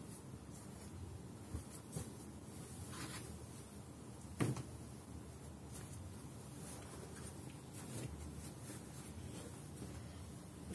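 Pillows, bolsters and a blanket being handled and moved about on a floor mattress: faint soft rustling with a few light knocks, the loudest about four and a half seconds in.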